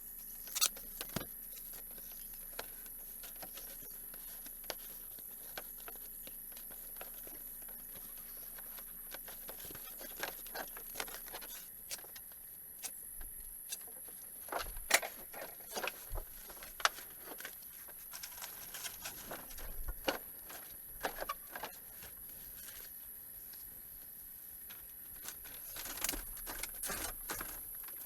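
Scattered small clicks and taps at an irregular pace, sparse at first and busier in the second half, over a steady faint high hiss.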